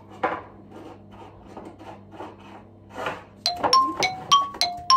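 Spice jars and small containers knocking and clinking as a kitchen cupboard shelf is rummaged through. About three and a half seconds in, music starts with bright, evenly spaced plucked notes, roughly three a second at changing pitches, louder than the rummaging. A faint steady low hum lies underneath.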